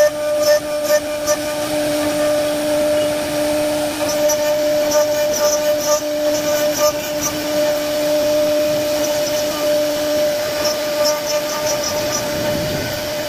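CNC router spindle carving a wooden door panel: a loud, steady machine whine, with a second, lower hum that drops out about ten seconds in.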